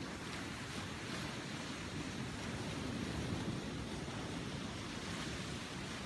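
Sea waves washing onto the shore: a steady hiss of surf over a low rumble.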